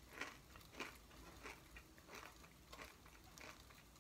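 Near silence, with faint scattered clicks and rustles: a camera and its paper packaging being handled while someone looks for a memory card.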